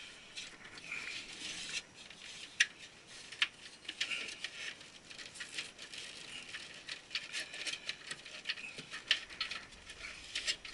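Irregular small clicks, taps and rustles of hands working cables inside a server case while loosening the cable management.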